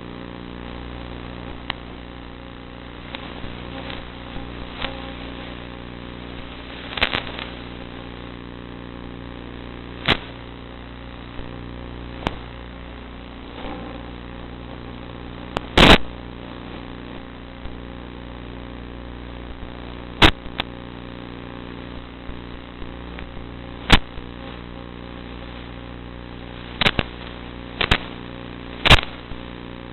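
Electric motor and propeller of a Zagi flying wing running steadily at a near-constant pitch, mixed with a hiss of rushing air. About eight sharp cracks or knocks break in at uneven intervals; the loudest comes about halfway through.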